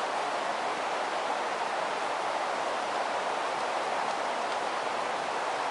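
Steady, even background hiss with no distinct sounds over it.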